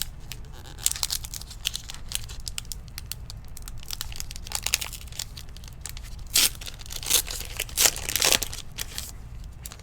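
A foil trading card pack wrapper being torn open and crinkled by hand, in irregular rustles with a few sharper, louder tears near the end.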